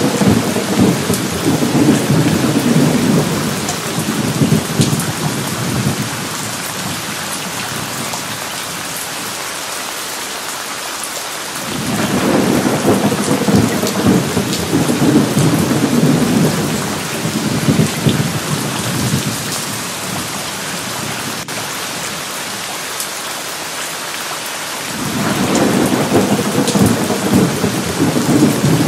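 Thunderstorm: steady heavy rain with long, rolling rumbles of thunder, one at the start, another about twelve seconds in, and a third near the end.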